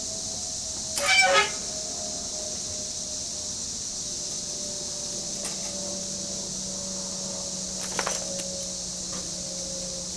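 Stainless steel skewers clinking against the grill grate and each other as they are set down: a loud cluster of ringing metal clinks about a second in and a few more near the end, over a steady high hiss.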